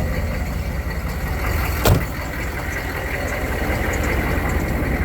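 1995 Chevy K3500's 6.5-liter turbo diesel V8 idling steadily after a ten-minute warm-up. A single sharp click about two seconds in.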